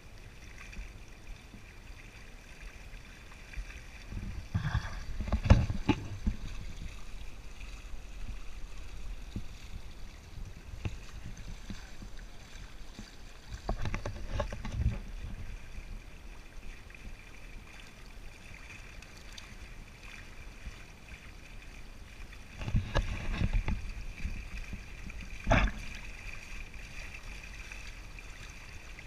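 Water rushing and splashing along the hull of a sailing kayak under way in light chop, with three louder bouts of slapping as waves hit the hull and outrigger float.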